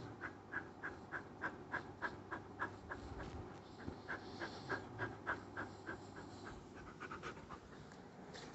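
A dog panting in quick, even breaths, about three a second, with a short break a little past three seconds in.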